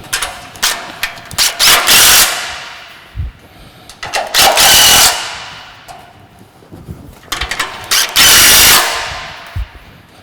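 Impact gun tightening the nuts and bolts that join the pallet-racking beams to the uprights: three rapid hammering bursts, each under a second, with short trigger blips before them.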